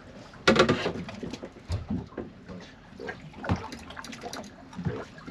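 Handling noise aboard a small fishing boat while a fish is held on the line: a sharp clatter about half a second in, then irregular knocks and clicks.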